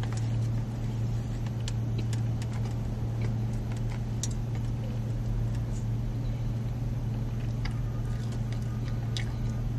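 Steady low hum inside a car, with a few faint crunches of someone chewing a sandwich.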